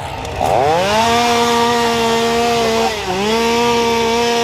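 A two-stroke chainsaw revved up and held at high revs, with a brief dip in throttle about three seconds in before it climbs back.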